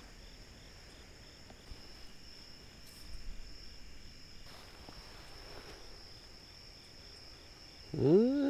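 Night insects, crickets, chirping in a steady high trill, with a second evenly pulsing trill just below it. A faint rustle about three seconds in, and near the end a short hummed vocal sound that rises and falls.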